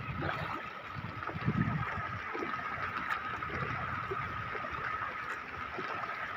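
Shallow floodwater flowing over a road and into flooded paddy fields, a steady even hiss of running water with a faint steady tone underneath.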